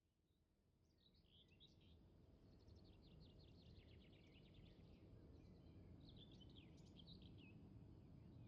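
Faint outdoor ambience fading in: a steady low rumble under small birds chirping in several quick runs.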